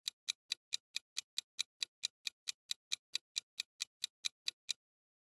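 Clock-like countdown-timer ticking sound effect: sharp, evenly spaced ticks, about four to five a second, that stop near the end as the answer time runs out.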